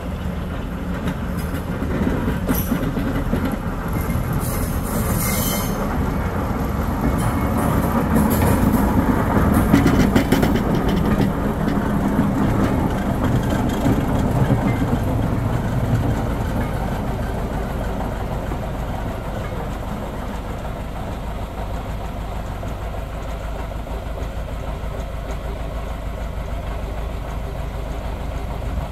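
Ruston 48 diesel shunting locomotive with a brake van passing by: the engine runs steadily and the wheels click over the rail joints. It grows louder to a peak about ten seconds in, then slowly fades.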